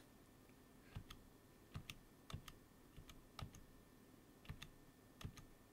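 Faint, irregular clicks from computer controls being tapped, about nine of them spread unevenly through otherwise near-silent room tone.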